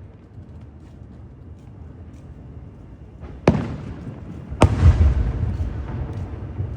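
Fireworks shells bursting: two sharp bangs about a second apart, past the middle, after a few quieter seconds. The second is the loudest and trails into a low boom lasting about a second.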